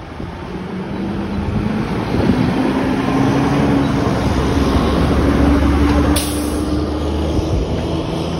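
Seagrave fire engine's diesel engine running as the truck pulls away and drives past, its pitch rising as it accelerates, with a short burst of air hiss about six seconds in.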